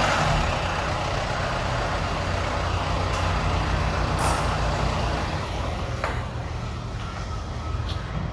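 Motor vehicle engine running steadily with a low hum, slowly fading, with a few faint clicks.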